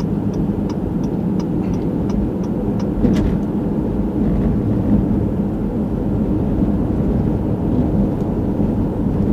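Steady engine and road noise of a car being driven, heard from inside the cabin, with a few faint ticks in the first couple of seconds.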